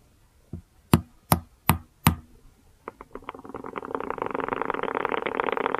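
Courtship signalling between Purple Earth Tiger tarantulas (Cyriopagopus sp. hati hati): the female taps four times, sharp and evenly spaced after a faint first knock, and the male answers with a rapid drumming rattle that builds in loudness and keeps going.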